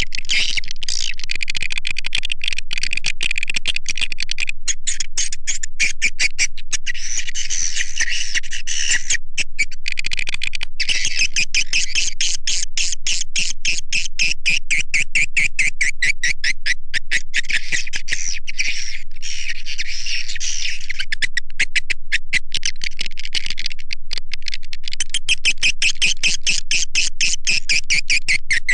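Swiftlet lure call: a dense, continuous stream of rapid, high twittering chirps of edible-nest swiftlets. It is the call sound that swiftlet farmers play to draw the birds into a nesting house.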